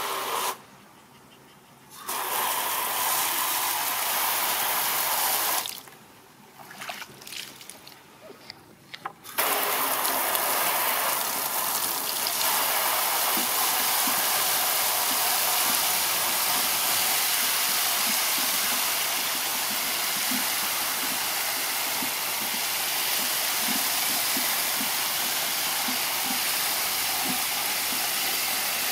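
A fine spray of water falling into a plastic tub that is partly full of water, a steady splashing hiss. It stops and starts twice in the first ten seconds, then runs on unbroken.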